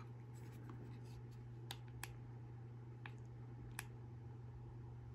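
Faint handling of a small plastic battery pack in the hands: four or so light, isolated clicks spread over a few seconds, over a low steady background hum.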